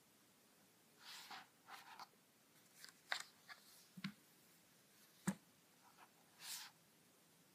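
Faint handling noises: a few short rustles and three sharp clicks or taps about a second apart.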